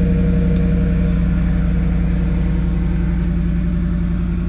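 Ford F-150 engine idling steadily through an aftermarket Flowmaster 70 Series muffler and side-exit pipe, with the resonator still in place. The sound cuts off suddenly at the end.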